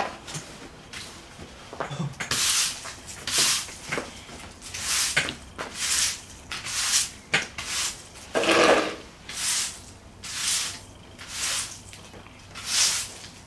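Breathing close to the microphone: a soft, breathy hiss about once a second, rising and falling in a steady rhythm.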